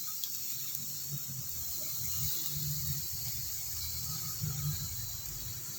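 Stir-fried water spinach sizzling in the pan: a steady high hiss with a soft, uneven low rumble underneath.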